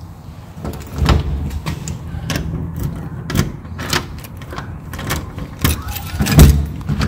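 Keys rattling and clicking in a door lock, with metal knocks from the knob and deadbolt at irregular intervals and a heavy thump about six seconds in.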